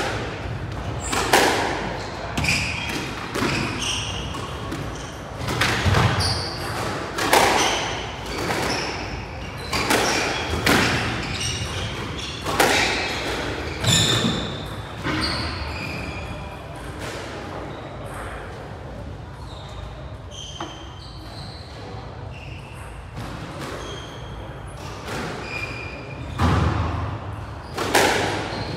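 Squash ball cracking off rackets and the court walls about once a second, echoing around the court, with short squeaks of court shoes on the wooden floor. The hits thin out in the middle and pick up again near the end.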